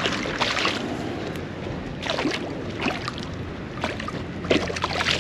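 A hooked smallmouth bass splashing at the water's surface in a few short bursts as it is played in to the bank, over wind noise on the microphone.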